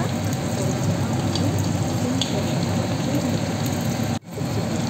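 Marinated Chicken 65 pieces deep-frying in hot oil in a kadai, a steady crackling sizzle. The sound briefly cuts out about four seconds in.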